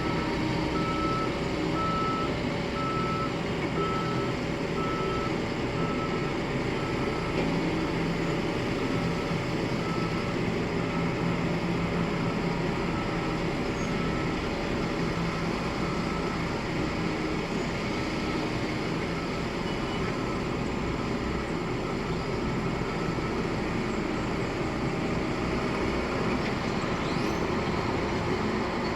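Heavy construction machinery's diesel engines running steadily, with a reversing alarm beeping about once a second for roughly the first half before it stops.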